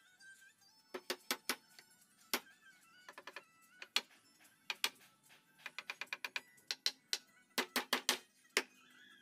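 Sharp wooden knocks in quick runs, several a second with single knocks between, as the slats and rails of a meranti slatted frame are knocked together and fitted.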